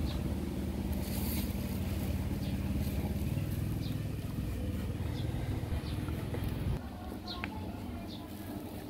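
A motor vehicle's engine running as a steady low drone, which drops away abruptly about seven seconds in.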